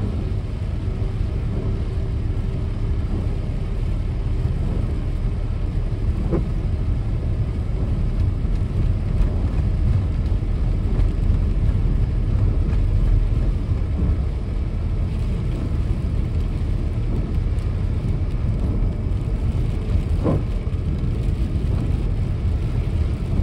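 Steady road noise inside a car driving on a wet expressway in heavy rain: a low rumble of tyres and engine under a wet hiss. Two faint ticks, one about six seconds in and one near the end.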